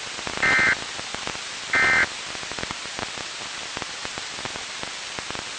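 Two short bursts of SAME digital data from Weather Radio Canada, a two-tone warbling chirp, about half a second and just under two seconds in: the end-of-message code closing the weekly test alert. Then steady radio static with scattered crackles.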